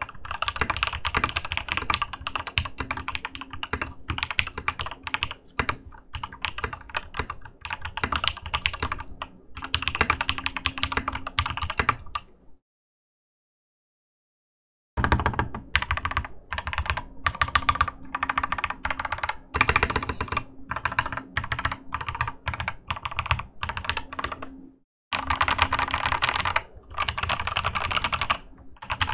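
Fast typing on a Ramaworks KARA mechanical keyboard with lubed SoHo R2 switches and PBT keycaps, its internal dampener removed: dense runs of keystroke clacks. The typing breaks off into complete silence for about two seconds halfway through, and drops out again for a moment near the end.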